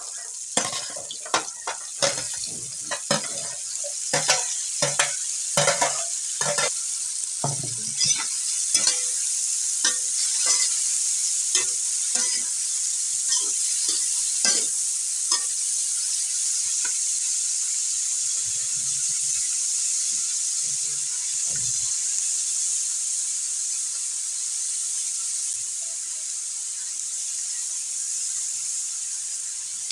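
Yard-long beans frying in a hot wok with a steady sizzle, while a metal spatula scrapes and clacks against the wok as they are stirred. The stirring strokes thin out after about fifteen seconds, leaving the sizzle.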